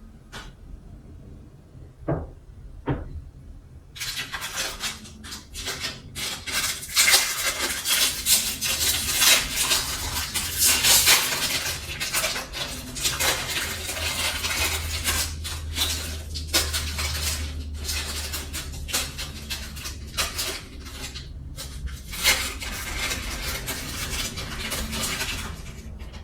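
A few separate knocks, then about four seconds in a long stretch of busy clattering and clinking of dishes and cutlery, with a low hum underneath.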